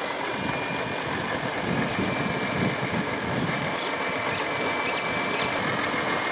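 Articulated truck's diesel engine running with a low, uneven rumble as the truck reverses slowly. A steady high whine runs over it, and a few short hisses come about four to five seconds in.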